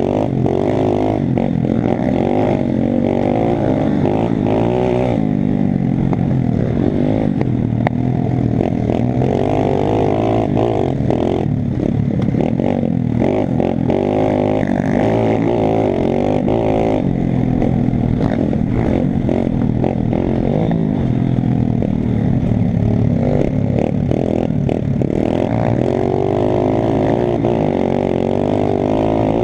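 Pit bike's small single-cylinder four-stroke engine revving up and down continuously while riding over a rough dirt trail, with clattering knocks from the bumps.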